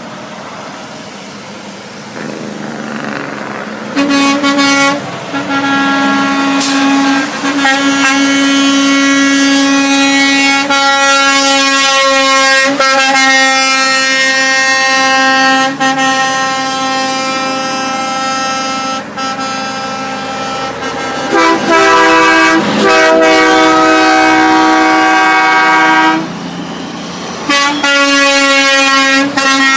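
Truck air horns blown one after another in long sustained chords, switching between different horns with short breaks between blasts, among them a multi-note train horn fitted to the truck. Quieter street traffic comes before the horns start, about four seconds in.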